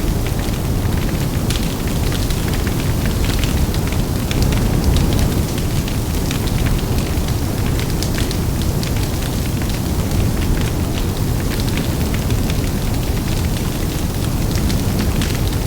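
Large bonfire burning hard: a steady low rumble of big flames and wind, with many sharp wood crackles and pops scattered throughout.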